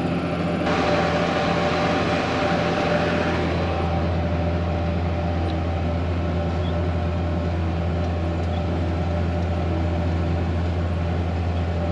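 Steady drone of a Buhler Versatile diesel tractor working in the field, pulling a harrow packer. The low hum grows stronger about three seconds in, while a hiss in the higher range fades.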